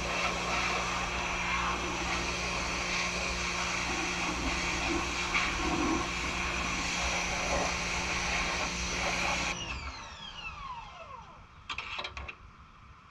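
Pressure washer running steadily, then shut off about ten seconds in, its motor winding down with falling pitch. A few short knocks follow near the end.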